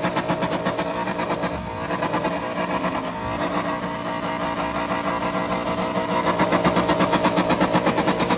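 Aston Martin Vantage engine held at high revs in a stationary exhaust showdown: a steady, loud drone with a rapid pulsing that grows louder about six seconds in.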